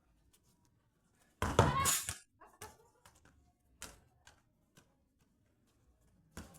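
Football play: a few sharp, separate thuds of a ball being kicked or bouncing, with one louder noisy burst lasting under a second about a second and a half in.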